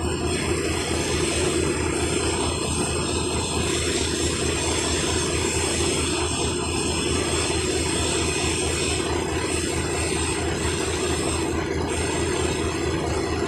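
Heavy wrecker tow truck's diesel engine running steadily with no change in pitch.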